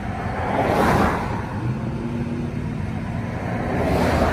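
Two vehicles pass close by with a rising and falling whoosh, one about a second in and one near the end, over the steady low road rumble of the car being ridden in.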